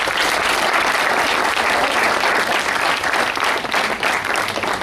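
A crowd applauding: many hands clapping together, steady and loud.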